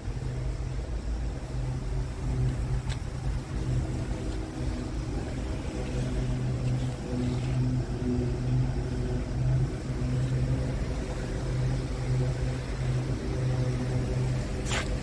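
Scania S tractor unit's diesel engine idling, a steady low hum, with a brief click near the end.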